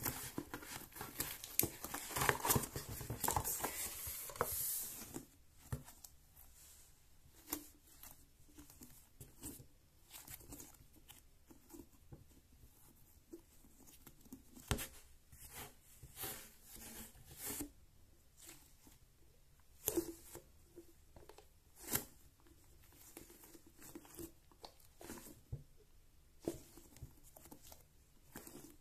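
Plastic wrapping and a cardboard box crinkling and tearing as a giant stress ball is unwrapped, dense for about the first five seconds. After that, only scattered soft rustles and squishes as the soft ball is squeezed and stretched in the hands.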